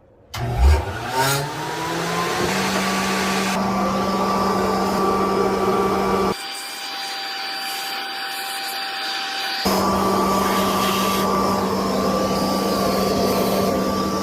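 Furnace blower motor spinning up and running with a steady high-pitched squeal, its pitch rising over the first two seconds before levelling off. The sound changes abruptly for about three seconds in the middle, then returns. The motor is squealing, and its bushing and bearings are about to be oiled to cure it.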